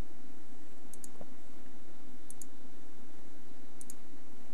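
Computer mouse button clicks: three sharp double clicks, each a press and release, about a second and a half apart, over steady background hiss.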